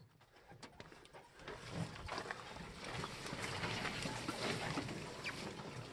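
Footsteps on a forest trail with brush and branches rustling and scraping, full of small clicks and knocks, building over the first two seconds.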